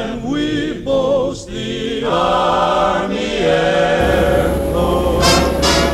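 Choir singing in vocal music; a steady low rumble comes in about four seconds in.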